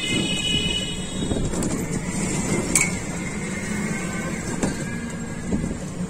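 Steady motor traffic noise with a low hum. A few high tones die away in the first second and a half, and there is one sharp click about three seconds in.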